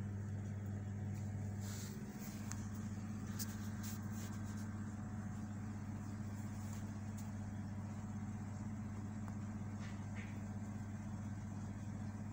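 Steady low mechanical hum with a few faint ticks.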